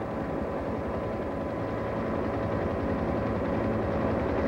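Helicopter in flight: the rotor beats in a rapid, even rhythm over a steady engine whine.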